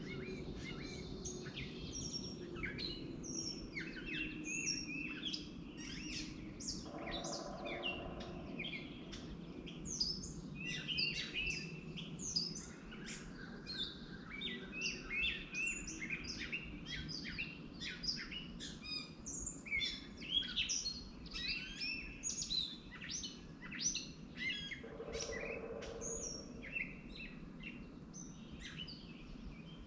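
Many small birds chirping busily, short high calls overlapping one another and thinning out near the end, over a steady low hum.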